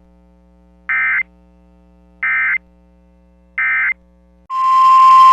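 Three short, identical bursts of Emergency Alert System digital data tones, about 1.4 seconds apart over a faint hum: the end-of-message signal that closes an alert. About four and a half seconds in, a loud, steady, single-pitched alert tone starts, opening the next alert.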